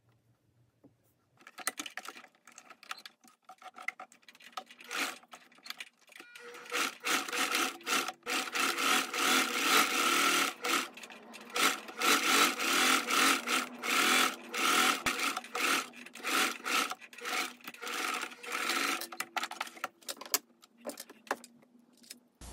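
Domestic electric sewing machine stitching a seam around a linen pocket bag. It runs in short bursts that stop and start, with a steady whine, after a few seconds of fabric being handled.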